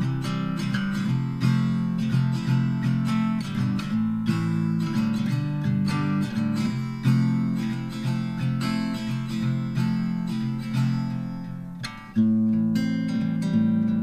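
Background music: acoustic guitar strumming and picking, dipping briefly and coming back in about twelve seconds in.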